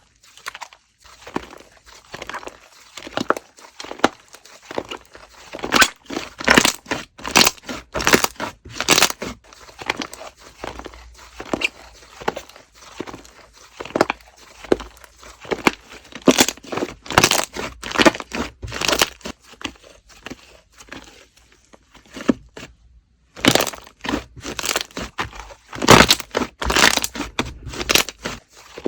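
Slime being squished and stretched by hand: irregular sticky crackles and pops in quick clusters, with a short lull a little past the middle.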